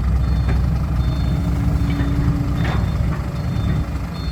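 Diesel dump truck engine running with a heavy, steady low rumble; the owner of the voice nearby calls its sound nice and soft. A high reversing alarm beeps about once a second over it.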